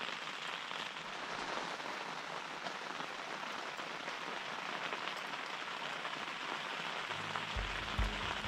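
Steady rain falling on the canvas of a lavvu tent. Low music begins to come in near the end.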